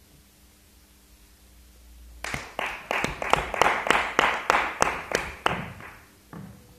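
Hand clapping, about four claps a second, starting about two seconds in and stopping after some three seconds, with a noisy wash between the claps; a few softer knocks follow.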